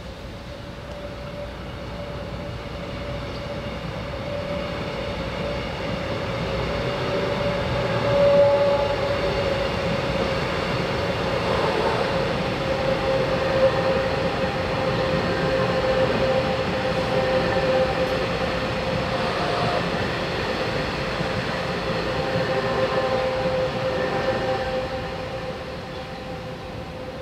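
Taiwan Railways passenger train running past at close range. Its sound grows over the first several seconds, stays loud, then fades near the end, with a steady tone that sinks slightly in pitch running through the rumble of the wheels.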